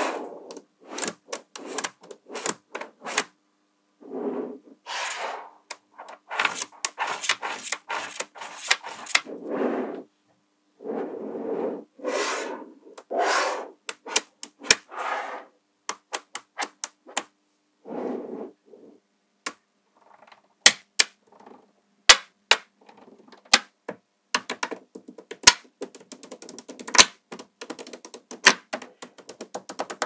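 Small neodymium magnetic balls clicking sharply as they snap onto each other, one at a time, with stretches of balls rattling and sliding against one another.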